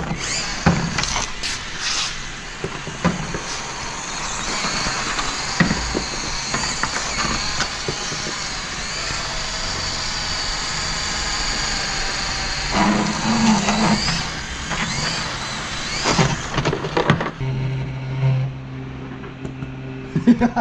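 Traxxas TRX-4M RC crawler driving along while towing a small trailer: the small electric motor and gears give a steady high whine, with occasional sharp knocks and rattles.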